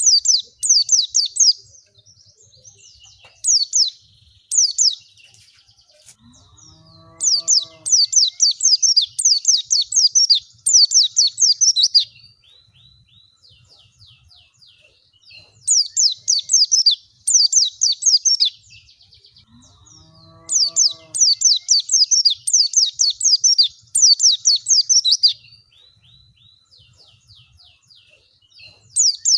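White-eye (pleci) song played as a lure: bursts of rapid, high-pitched twittering chirps with short pauses between, the same phrases coming back about every 13 seconds. A short, lower-pitched call sounds twice, at the start of two of the longer bursts.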